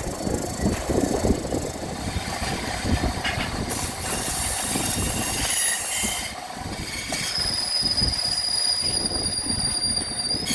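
Workshop machinery running with an irregular rumbling rattle; about seven seconds in a steady high-pitched whine joins it.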